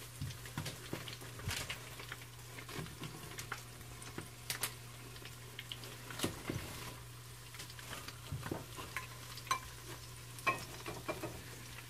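Egg rolls shallow-frying in hot oil in a pan: a low sizzle with scattered sharp pops and crackles of spattering grease.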